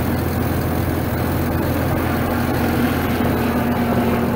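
Bulldozer's diesel engine running steadily, heard from inside its cab.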